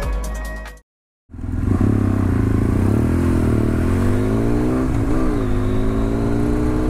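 Electronic music cuts off, and after a brief silence comes a BMW F800 ST's parallel-twin engine under way, heard over wind noise. Its pitch climbs as it revs up, then dips and recovers twice.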